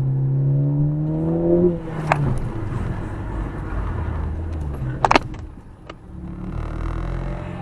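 Ford Focus ST's EcoBoost turbocharged four-cylinder accelerating, its pitch rising for under two seconds and then dropping off. Then comes a stretch of lower engine and road noise with a few sharp clicks, the loudest about five seconds in.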